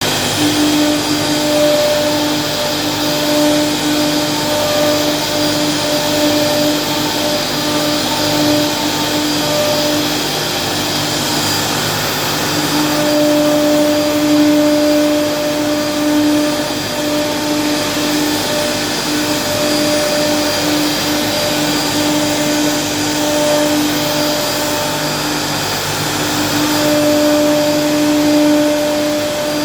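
CNC machine running, a loud steady motor-and-cutting noise with a pitched hum that fades out and comes back several times.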